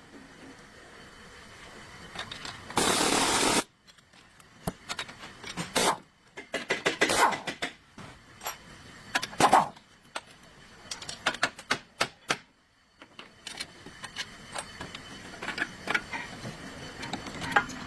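Irregular metallic clicks, clanks and scrapes of tools and parts being handled, with one loud hissing burst lasting nearly a second about three seconds in.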